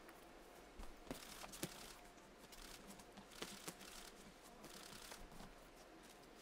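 Faint boxing-ring sounds: boxers' feet scuffing on the canvas, with a few sharp slaps, a pair about a second in and another pair past three seconds in.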